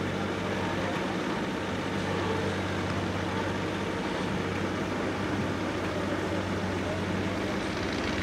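Engine of a truck-trial prototype truck running steadily at low revs as the truck crawls down a steep dirt slope.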